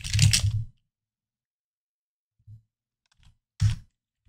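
Computer keyboard typing: a quick flurry of keystrokes at the start, then a pause and a few separate key presses, the loudest a little before the end.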